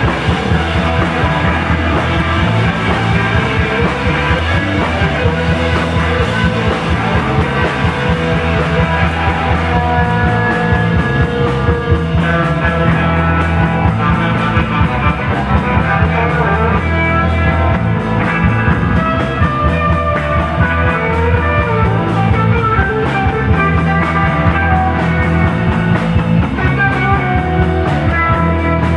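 Garage-psychedelic rock band playing live: distorted electric guitars, bass guitar and a Pearl drum kit in a steady, driving passage.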